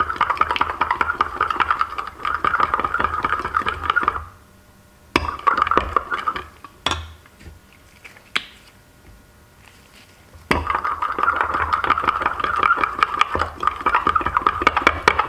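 Metal spoon stirring colour into liquid soft plastic in a glass measuring cup, a fast steady scraping and clinking against the glass. The stirring stops a little over four seconds in, picks up again briefly, gives way to a few seconds of quiet with a couple of single clicks, then starts again about ten seconds in.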